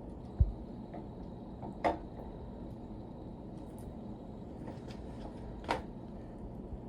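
Camshaft being worked into a small-block Ford engine block: a dull thump, then two sharper metal knocks as the cam bumps against the cam bearings, over a steady low hum.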